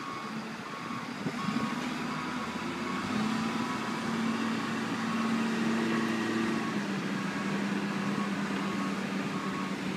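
Diesel engine of heavy construction machinery running steadily; its low, even note grows louder about a second and a half in, then holds.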